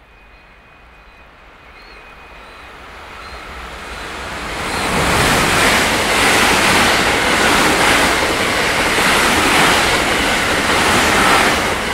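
A JR West Special Rapid Service electric multiple-unit train passing at speed on a through track: the rush of wheels on rails and air grows over the first five seconds as it approaches. It then holds loud and steady while the cars go by, easing off just at the end.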